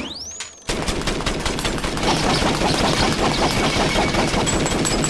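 A short whistle that rises and falls, then a long stream of rapid-fire pops like a machine gun: a film sound effect of a gun-like Christmas-decorating contraption firing.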